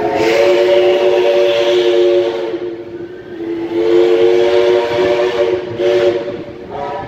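Steam locomotive whistle sounding a chord of several tones at once: a long blast of about two and a half seconds, a short break, a second blast of about two seconds, then shorter toots near the end, over the rumble of the train's carriages rolling past.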